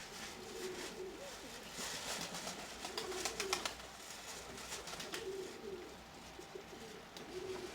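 Domestic Nikolaev pigeons cooing, a short warbling coo about every two seconds. A cluster of sharp clicks comes about three seconds in.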